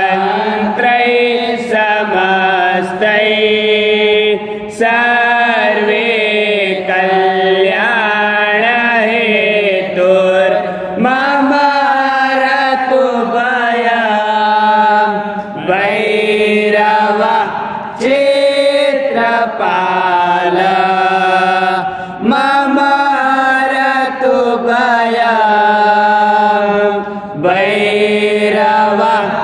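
A single voice chanting a Sanskrit shloka to Bhairav in a flowing, sung melody, with long held notes and short pauses for breath.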